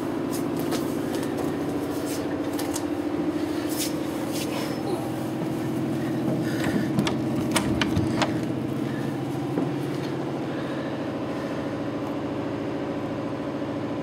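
Steady machinery hum with several pitches at once, with scattered sharp clicks and knocks, the busiest and loudest about seven to eight seconds in.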